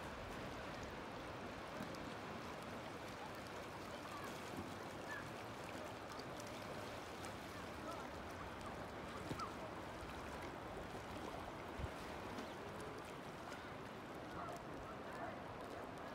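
Low, steady wash of a calm sea against a rocky shore, with faint short chirps now and then.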